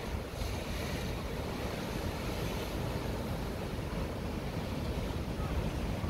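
Sea surf breaking over shore rocks and a concrete tetrapod breakwater: a steady rush of white water, with a brighter hiss of a breaking wave about half a second in. Wind buffets the microphone throughout, adding a low rumble.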